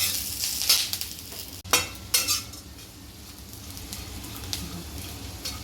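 Metal spoon scraping and stirring in a pan as raisins and curry leaves sizzle in oil, with several clacks and scrapes in the first couple of seconds, then a quieter steady sizzle.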